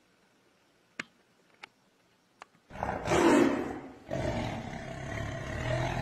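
A lion roaring twice, a short roar and then a longer one, in the manner of a film-studio logo. Before it there are three faint clicks.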